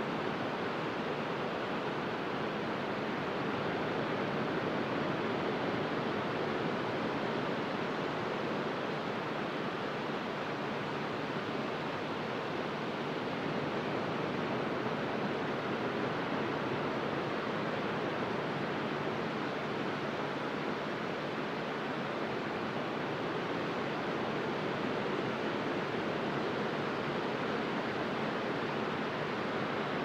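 Sea waves breaking in low lines and washing over a wide, flat sandy beach: a steady, even rush of surf with little rise and fall.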